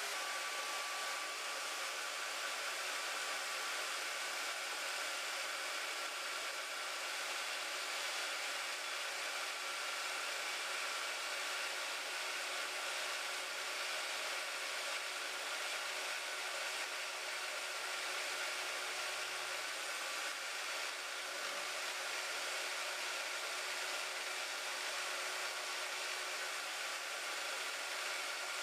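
Harbor Freight band saw running steadily through a slow cut, a continuous even whir with no change in pitch or loudness.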